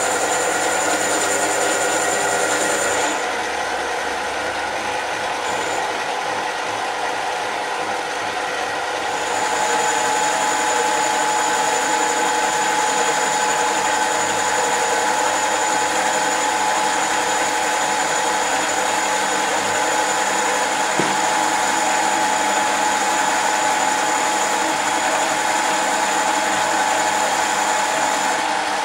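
Mini lathe running steadily, its motor and gears whining, while the cutting tool turns a 50 mm cast iron bar. The sound drops a little about three seconds in and comes back up about nine seconds in.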